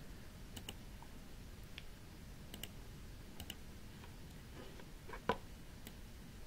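Faint clicks of a computer mouse button, scattered and several in quick pairs, with one louder click about five seconds in.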